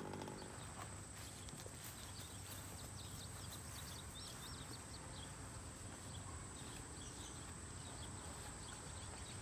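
Quiet outdoor ambience: a steady faint high whine and scattered faint chirps over a low background hum. Right at the start, the last of the RC buggy's small two-stroke engine note falls away.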